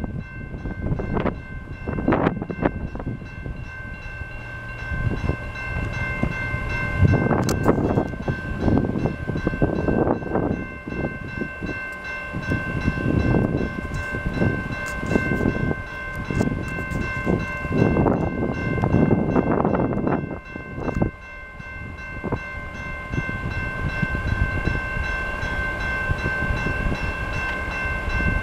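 Wind buffeting the microphone in irregular gusts over a steady high-pitched ringing of several tones, as a diesel freight locomotive approaches from a distance.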